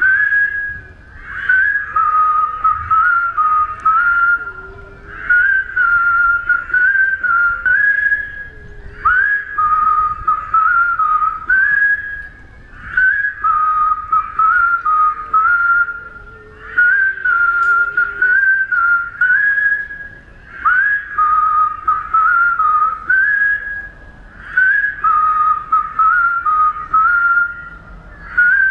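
A large crowd whistling together: one clear whistled tune stands out over a haze of many other whistles, a short phrase repeating about every four seconds with brief dips between.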